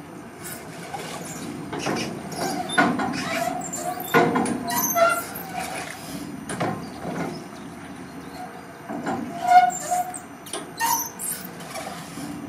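Rusty steel gear-and-crank linkage of a kinetic sculpture squeaking and creaking irregularly as its arm swings the wing, with scattered knocks.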